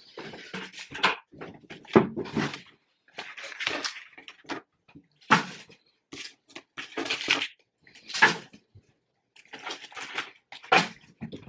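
Cardboard and paper packaging being torn open and handled: irregular ripping, rustling and crinkling, with a few sharper, louder rips every couple of seconds.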